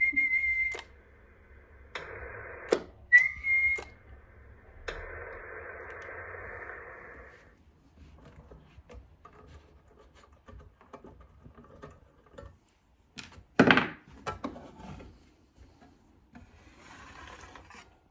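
Radio audio cut off above about 2.5 kHz: a steady whistle tone and bursts of hiss, each starting and stopping with a sharp click, for the first seven seconds or so. After that come scattered small clicks and one louder knock about fourteen seconds in.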